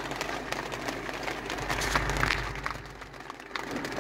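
Rain and hail hitting the roof and windshield of a car, heard from inside the cabin as a dense patter of small ticks over a hiss. A low rumble joins in about two seconds in.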